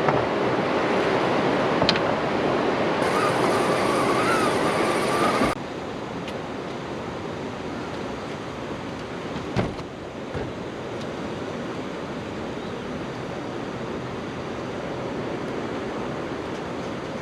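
Steady rushing of river water below a dam, an even noise with a few sharp knocks. The noise drops abruptly in level about five and a half seconds in.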